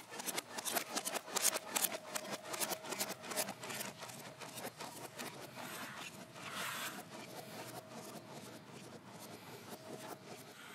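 Dense rapid clicking and scraping of something rubbed along rows of book spines on library shelves. The clicks are thickest in the first few seconds, then settle into a steadier rub.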